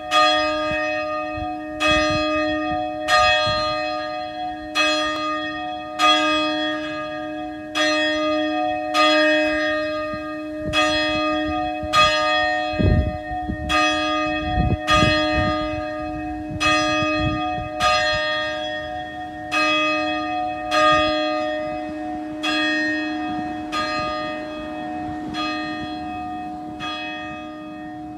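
A single church bell tolling, struck about once every second and a half, its hum ringing on between strokes. The strokes grow weaker toward the end.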